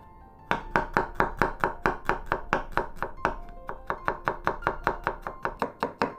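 Chef's knife slicing shallots on a wooden cutting board: quick, even blade strikes on the board, about five a second, starting about half a second in.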